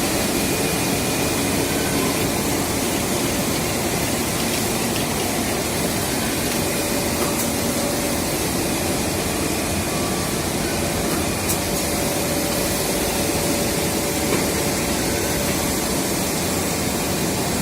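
Steady factory din of a running power-cable production line with its automatic coiling and wrapping machine: an even mechanical noise with a couple of faint steady tones and a few light clicks.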